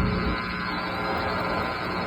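Steady low drone and hum of a running vehicle.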